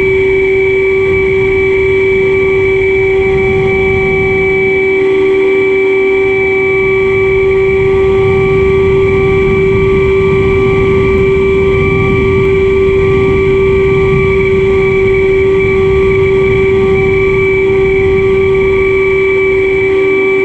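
Motor and propeller of a foam delta-wing model plane running at steady throttle: one unchanging whine, with rough wind noise rumbling beneath it.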